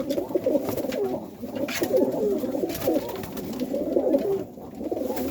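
Domestic pigeons cooing in a loft, several birds at once, their low warbling coos overlapping without a break, with a few light taps among them.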